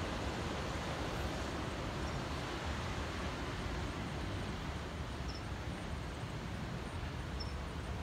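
Steady noise of distant ocean surf breaking along the shore, mixed with wind on the microphone. Two faint, short high chirps come in about five and seven seconds in.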